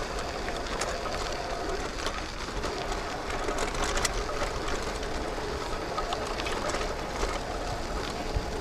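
A BiciMAD shared bike rolling steadily over a gravel dirt track: tyres crunching on the grit, with a continuous fine rattle and clatter from the bike's frame and fittings.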